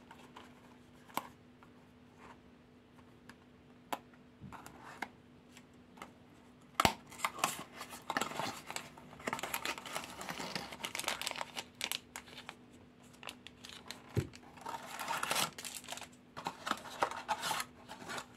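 Small cardboard surprise box being opened by hand: a few light taps at first, a sharp tearing snap about seven seconds in, then a plastic packet crinkling and rustling in surges as it is pulled out of the box and handled.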